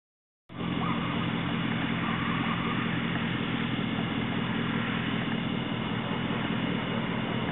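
Steady drone of a running vehicle engine, starting suddenly about half a second in and holding an even level.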